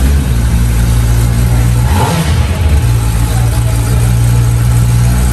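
Kawasaki ZX-10R's inline-four engine running steadily just after start-up, with a short blip of the throttle about two seconds in.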